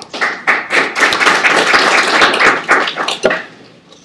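Audience applauding, many hands clapping together. It swells quickly at the start and dies away about three seconds in, ending with a few scattered claps.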